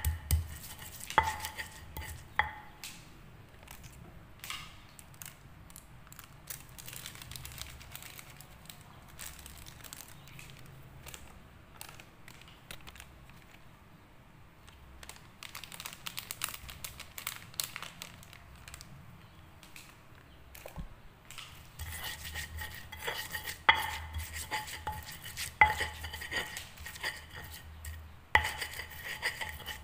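Stone pestle grinding and scraping spice paste against a flat stone mortar (Indonesian ulekan and cobek), with sharp knocks of stone on stone. The strokes thin out after the first few seconds and grow busier and louder again about two-thirds of the way through.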